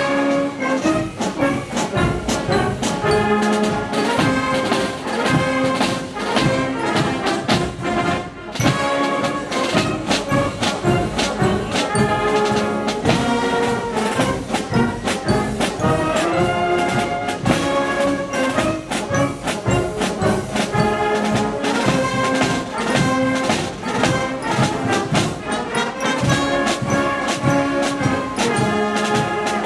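A massed wind band playing together: brass (tubas, trumpets, trombones), clarinets and saxophones over bass drum and snare drum, with a steady beat. The music briefly thins about eight and a half seconds in, then carries on.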